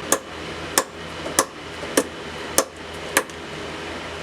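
Six regular hammer blows on a steel turbo stud, a little under two a second, bending the over-bent stud back into line.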